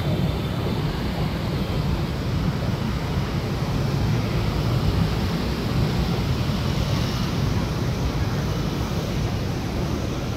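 Steady low rumble of city street traffic with a general outdoor hum, no single event standing out.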